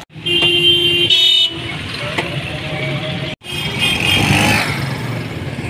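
Street traffic: vehicle horns honk in the first second and a half and again after a brief drop-out about halfway, over the steady running of motorcycle engines.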